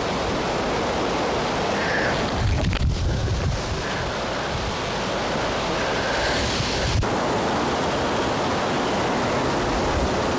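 Wind blowing steadily through the trees, with low gusts buffeting the microphone, strongest about a third of the way in.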